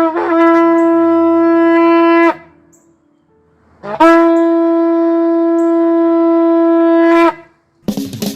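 Shofar (ram's horn) sounding two long held blasts on one steady note. The first lasts about two seconds and the second about three, after a pause, and each ends with a brief upward flick in pitch. Music starts just before the end.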